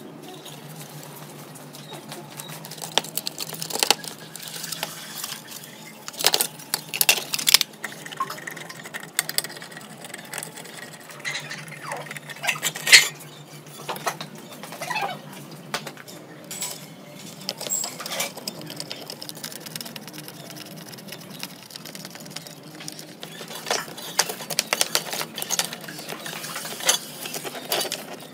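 Sheet-metal parts of a desktop computer power supply being handled and taken apart: its cover lifted off and the board pulled out, with scattered metallic clinks, rattles and light knocks. The loudest knock comes about 13 seconds in.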